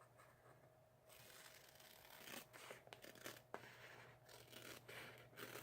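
Faint scissors snipping and rustling through copy paper, trimming the white edges off a printed chip bag: a few soft, irregular cuts after the first second.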